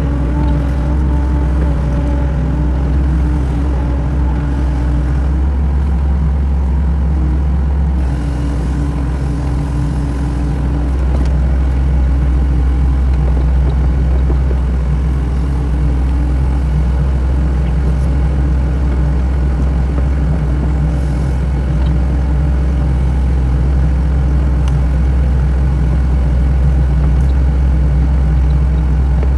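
Sany mini excavator's diesel engine running steadily with a deep hum, and a higher tone that drops out and comes back several times. It gets a little louder about twelve seconds in.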